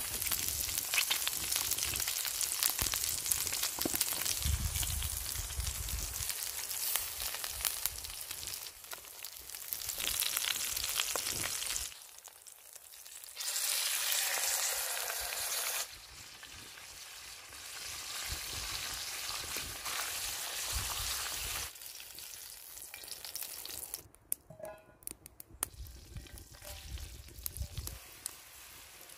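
Food sizzling and frying in a pan, with stirring now and then. The sizzle changes level abruptly several times, dropping to quieter stretches about twelve seconds in and again near the end.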